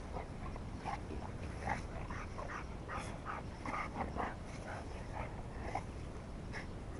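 English bulldog–American Staffordshire terrier cross gnawing a stick, with short, irregular cracks and crunches.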